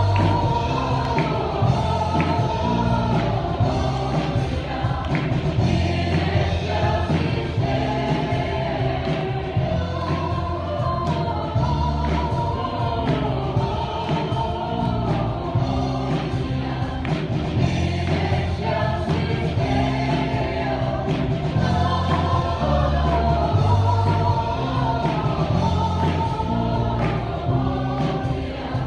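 Live worship band playing a gospel song: a woman sings over electric bass and strummed acoustic guitar.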